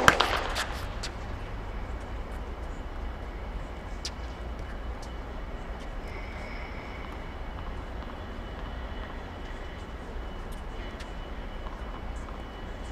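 Tennis racket striking the ball hard right at the start, followed within a second by a few lighter knocks of the ball. The rest is a steady low rumble with a few faint, distant knocks.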